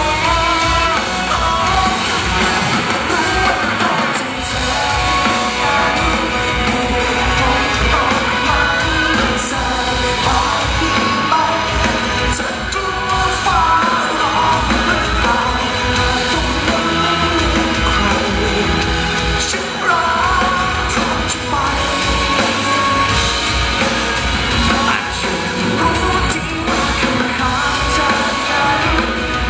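Live pop-rock band performing a song, with a voice singing over a full drum kit, cymbals and band accompaniment.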